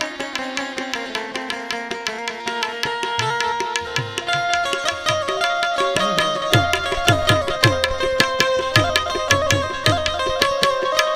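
Instrumental interlude of a Gujarati song: a plucked-string melody of quick repeated notes over held tones. About three seconds in, hand-drum strokes with a falling low pitch join, and from about six seconds they settle into a steady, stronger beat.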